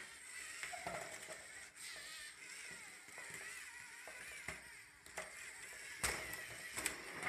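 LEGO Mindstorms EV3 tracked robot's motors and plastic gears whirring, with scattered clicks and knocks from its tracks and parts, the loudest about six seconds in and near the end.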